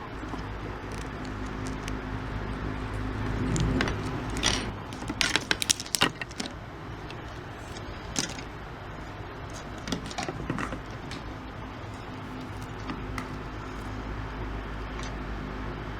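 Clicks and rattles from handling a Cat5e cable and a cutting tool while slitting the cable's outer jacket, in a quick cluster about four to six seconds in and a few more later, over a steady low hum.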